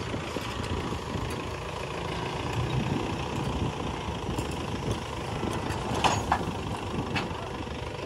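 Diesel engine of earth-moving machinery running steadily, with a few sharp knocks about six and seven seconds in.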